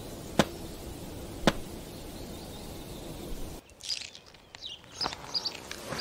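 Outdoor ambience: a steady background hiss broken by two sharp clicks about a second apart. Then the sound drops to a quieter background with a few short, high bird chirps and small clicks.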